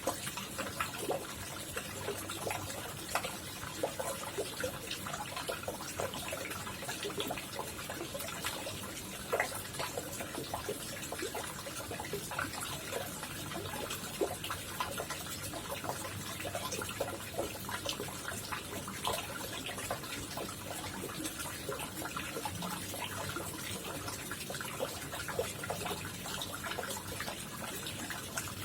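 Koi pond water trickling and splashing steadily, with many small quick drips and bubbles.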